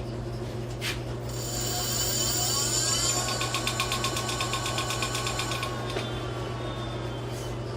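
E-bike's electric motor spinning up: a whine that rises in pitch over a couple of seconds, holds steady with a fast pulsing buzz, then falls away as the motor winds down. A click comes just before it starts.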